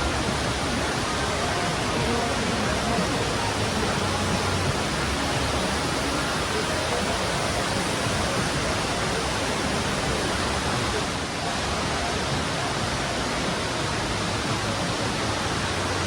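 Steady, even rush of falling water from the indoor atrium waterfalls.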